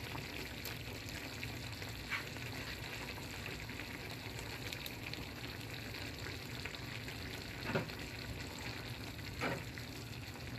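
Tomato-chipotle salsa sizzling and simmering in a frying pan, a steady hiss. Three light knocks come about two, eight and nine and a half seconds in as shredded chicken is added and stirred in.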